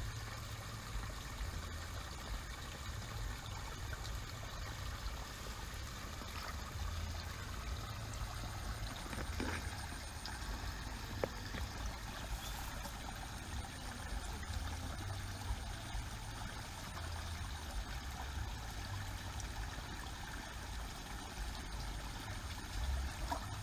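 Wind rumbling on the microphone over a steady faint hiss, with no distinct event standing out.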